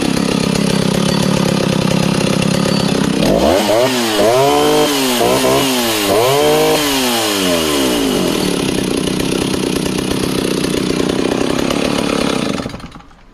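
West German Stihl 08S two-stroke chainsaw running just after a restart: it idles, is revved up and down about four times a few seconds in, settles back to idle, and is switched off near the end.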